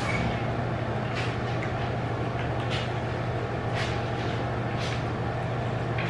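Dog eating from a ceramic bowl: four short clicks or smacks of its chewing and of the bowl, about a second apart, over a steady low hum.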